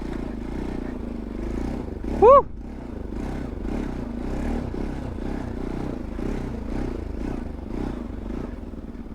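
Bajaj Pulsar NS200 single-cylinder motorcycle engine running while the bike rides over a rough track, with steady clattering and rattling. About two seconds in there is one short, loud pitched sound that rises and falls.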